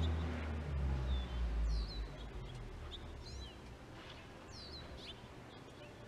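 A small bird calling with short, high, downslurred chirps, repeated every second or so. Under it, a low rumble fades out about two seconds in.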